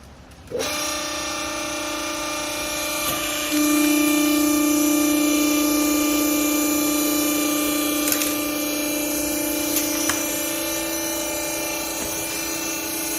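Hydraulic baling press running, a steady motor-and-pump hum that starts about half a second in and grows louder about three and a half seconds in, with a few faint clicks.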